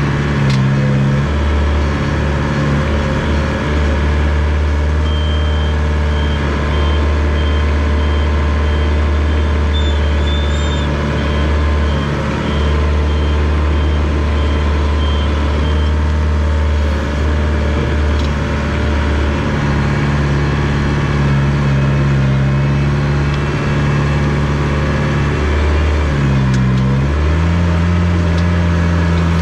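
Diesel engine of a rubber-tracked Komatsu D21 bulldozer running steadily under changing load, its pitch dipping and recovering near the end. A reversing alarm beeps evenly for about ten seconds in the middle.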